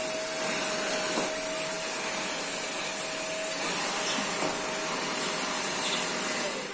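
Electric vacuum cleaner running steadily with a motor whine, then switched off at the very end, its whine falling in pitch as the motor winds down.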